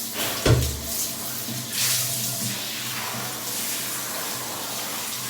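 Shower water running steadily during a dog's bath, with a dull low thump about half a second in.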